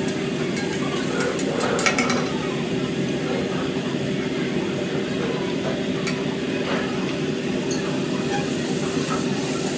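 Food sizzling on a steel teppanyaki griddle as a metal spatula scrapes and taps across the hot surface, with a cluster of sharp clicks about two seconds in. A steady hum runs underneath.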